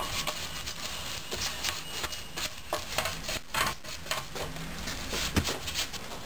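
Small brush working glue into a row of split bamboo strips for a fly rod: a run of irregular brushing strokes, with a sharper knock near the end.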